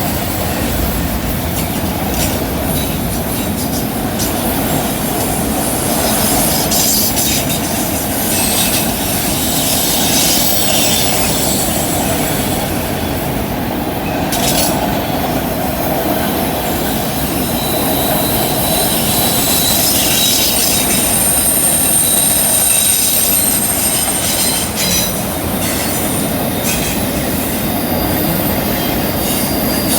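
A CN freight train rolling through a curve. Its wheel flanges squeal in thin, high tones that come and go over a steady rolling rumble, with clicks of wheels passing over rail joints.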